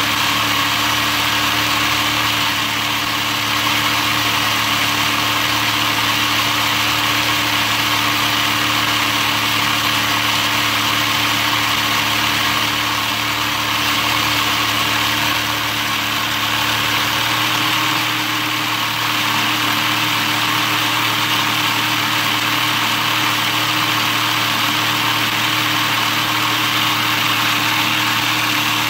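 Motor-driven LEGO model of a Toyota 4A-GE engine running steadily: a continuous whir of the electric motor with the whirring rattle of plastic gears, crank and pistons turning over.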